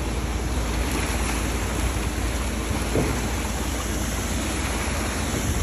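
Water and live fish gushing out of a discharge pipe into a concrete tank as a fish-transport truck is unloaded: a steady splashing rush with a low rumble underneath.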